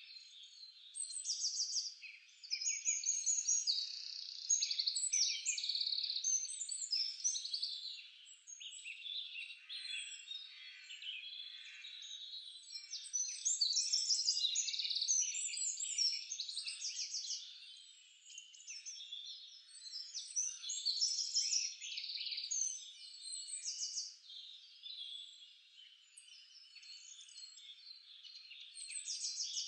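Birdsong chorus: many birds chirping and trilling at once in quick, overlapping calls, swelling and fading in loudness.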